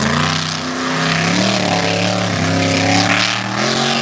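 Mega mud truck's engine running hard at high revs, a loud, steady note with brief dips and rises in pitch as the throttle is worked.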